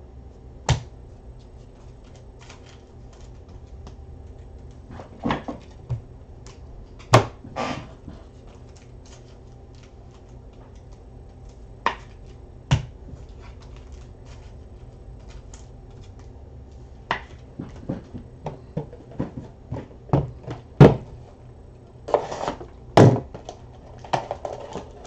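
Scattered clicks and knocks from cardboard trading-card boxes being handled on a tabletop, growing busier over the last several seconds, over a steady low hum.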